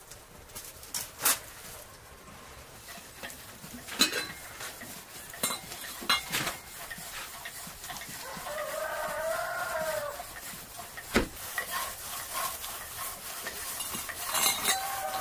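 A farm animal's call: one long cry that rises and falls in pitch, a little past the middle, over scattered sharp clicks and knocks.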